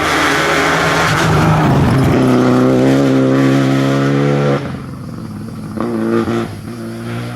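Rally car engine at high revs passing on a stage, its note holding and rising slightly before cutting off suddenly about four and a half seconds in as the driver lifts off. A short burst of throttle follows about a second later.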